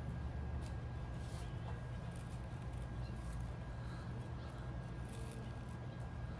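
Faint rustles and light taps of card stock being handled and picked up, over a steady low hum.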